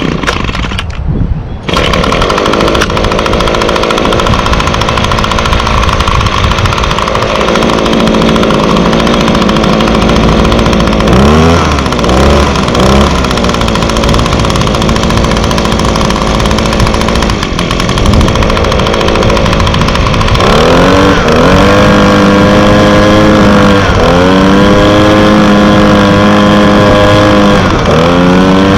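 Echo PB250 handheld leaf blower's 25.4cc two-stroke engine being pull-started, catching within the first two seconds and running at a fast, uneven idle with a couple of short revs. From about twenty seconds in it is throttled up high, dropping briefly and revving back up twice.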